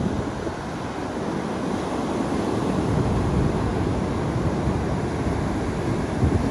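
Ocean surf breaking and washing up a sandy beach, with wind buffeting the microphone in a steady, rumbling rush.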